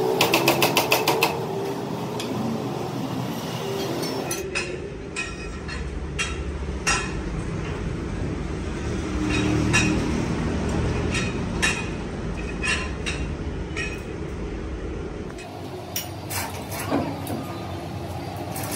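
Machine-shop noise: machinery running with a low steady hum, broken by scattered sharp metallic clinks and knocks. It opens with a rapid rattle of clicks, and the sound changes abruptly at about four seconds and again near the end.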